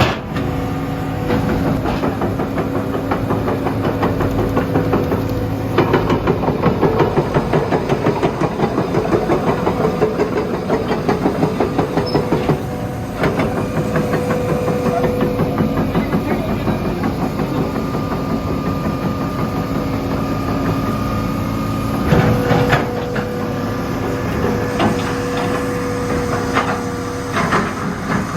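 Hitachi EX200-2 excavator at work: its Isuzu 6BD1 six-cylinder diesel runs under load with a steady hydraulic whine. A few sharp knocks come through, about six seconds in, around thirteen seconds, and twice near the end.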